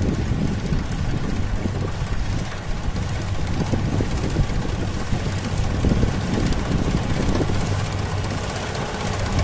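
Kubota rice combine harvester running steadily while it cuts standing rice: a continuous engine drone with a low hum and the clatter of the cutting and threshing gear.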